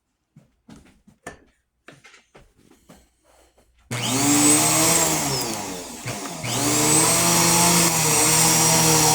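Bissell PowerForce Helix Turbo Pet upright vacuum cleaner switched on about four seconds in, after a few faint handling clicks. Its motor then runs with a steady whine, which sags in pitch and level briefly about two seconds later before recovering.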